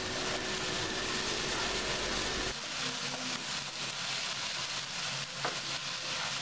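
Mixed vegetables sizzling and simmering in oil and water in a nonstick pan, stirred with a wooden spatula. A glass lid is set down on the pan with a short click about five seconds in.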